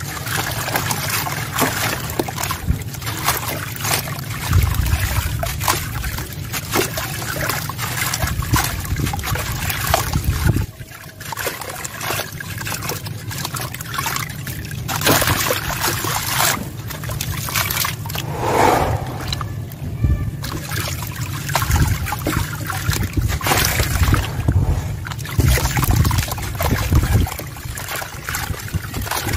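A sand-cement block crumbled by hand over a tub of water: gritty crunching and crackling as pieces break away, with sand and crumbs trickling and splashing into the water.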